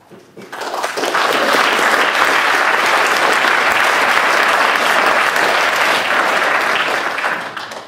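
Audience applauding a lecture: many hands clapping, swelling in over the first second, holding steady, then dying away near the end.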